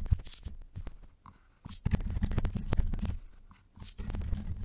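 Typing on a computer keyboard: runs of rapid key clicks with short pauses between them.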